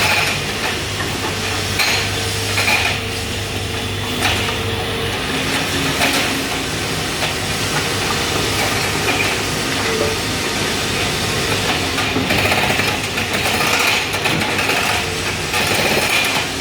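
A machine engine running steadily under a hiss of noise, with repeated metallic knocks and clanks every second or two.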